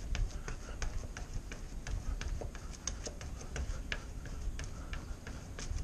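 Trials unicycle hopping and balancing in place on brick pavement: a run of quick, irregular clicks and taps, about three or four a second, over a low rumble.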